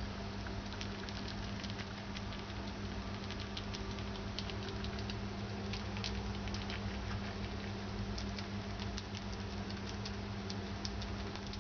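A white pet rodent eating rice soaked in milk: quick, irregular little clicks and smacks of chewing and licking, over a steady low hum.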